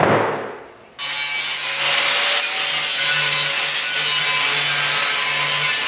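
A steel lick-barrel ring set down on a steel table clanks and rings out. About a second in, an angle grinder starts grinding steadily along the ring's cut edge, deburring the sharp metal, and stops suddenly near the end.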